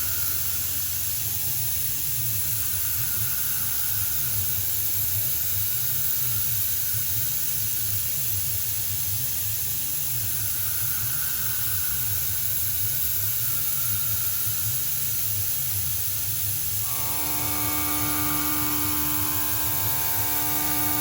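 CNC milling machine running: a steady hiss and whirr over a pulsing low rumble. About 17 s in, a set of steady humming tones joins it.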